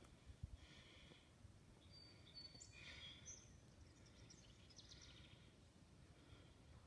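Near silence: faint outdoor ambience with a few faint bird chirps about two to five seconds in.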